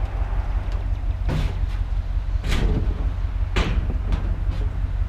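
Scrap being loaded onto a trailer: four sharp knocks and clanks about a second apart, over a steady low rumble.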